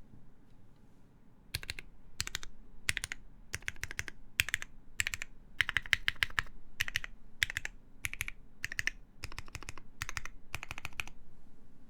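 Typing on a mechanical keyboard with lubed Cherry MX Black linear switches, ABS keycaps and a half-aluminium plate: quick runs of keystrokes with short gaps between them, beginning after a pause of about a second and a half and stopping near the end.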